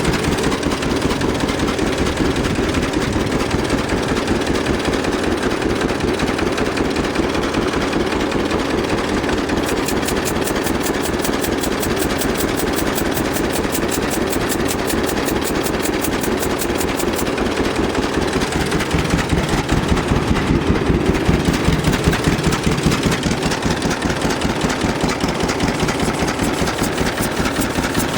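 1948 John Deere A's two-cylinder engine running with a steady, even firing beat, growing a little louder about twenty seconds in.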